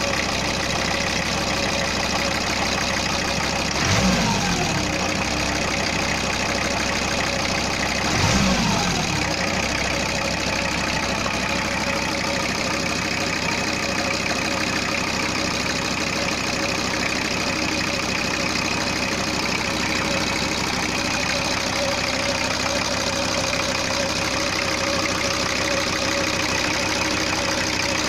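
VW T4 2.4 D five-cylinder diesel engine idling with a steady diesel clatter, freshly run after a cylinder-head rebuild. It is blipped twice, about four and eight and a half seconds in, each time revving briefly and dropping back to idle.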